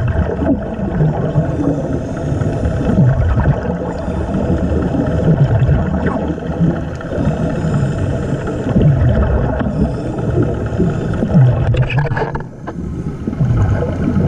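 Underwater recording: a dense, muffled low rumble with bubbling and gurgling from a hookah diver breathing through a surface compressor's air hose, the hum of the boat's compressor or engine carried through the water. The rumble briefly drops about twelve seconds in.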